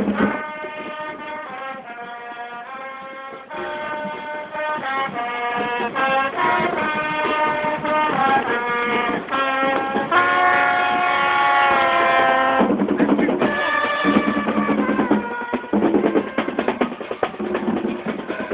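Marching band playing on parade: brass playing a melody in short notes over snare and bass drums, with a long held chord about ten seconds in, then mostly drums near the end.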